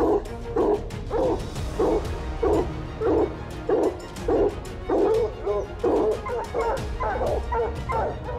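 A hunting dog barking over and over, about one bark every 0.6 seconds. In the last few seconds the barks come closer together and waver in pitch.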